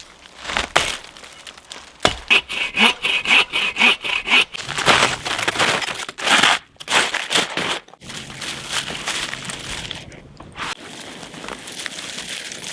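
Quick, uneven scraping strokes for several seconds, then a steadier rough rustle.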